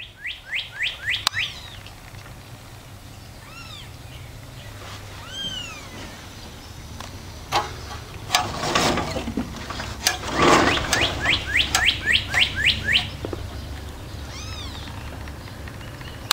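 Newborn kitten crying with high-pitched mews, some single and drawn out, others in quick runs of short falling cries. Rustling noises come around eight and ten seconds in.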